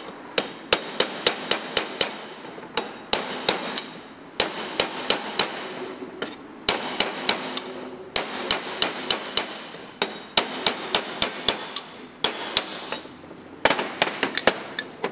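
Hammer blows on a steel drift driving the bearings out of a 1985 Rolls-Royce Corniche water pump housing: sharp, ringing metal-on-metal strikes in bursts of four to six, about five a second, with short pauses between bursts.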